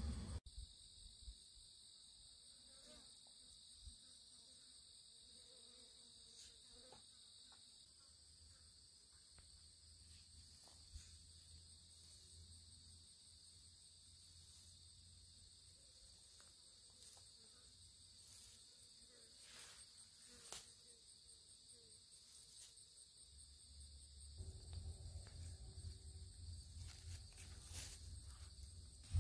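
Faint, steady, high-pitched chirring of insects, with a few soft clicks scattered through it; a low rumble grows louder near the end.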